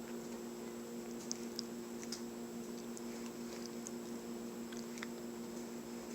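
A steady hum with faint, scattered small ticks and rustles of hands working and plaiting hair.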